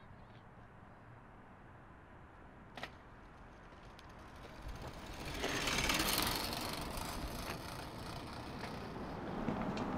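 Bicycle ridden on a paved street. The first half is quiet with one click near three seconds. About five seconds in, a rushing sound of tyres and air rises and stays loud.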